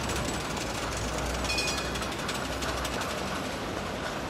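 Ride noise of a vehicle moving slowly along a city street: a steady rumble with a low hum underneath, and a brief high squeal about one and a half seconds in.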